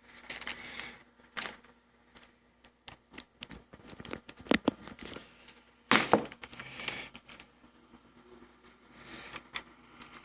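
Scattered clicks and rustling from handling a phone and its USB cable as it is plugged into a computer, with a few sharper knocks about 1.5, 4.5 and 6 seconds in.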